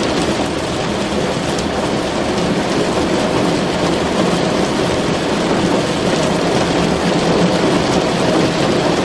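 Rain pelting steadily on a car's roof and windows, heard from inside the car as a dense, even hiss.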